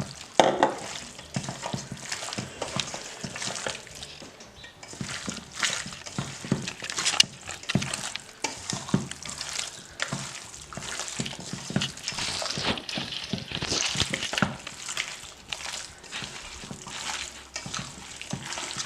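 Raw chicken pieces being mixed into a wet masala of crushed onion, spice powders, coconut oil and vinegar, making irregular wet squishing and stirring noises.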